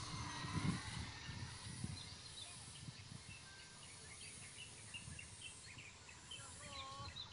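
Small birds chirping, with short high calls repeating over a faint outdoor background. A low rumble in the first second or two fades away.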